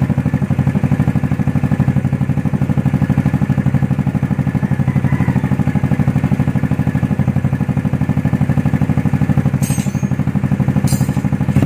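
Yamaha Mio Sporty scooter's single-cylinder four-stroke engine idling steadily through a Hero pipe V4 aftermarket exhaust with its silencer removed, an even rapid pulsing.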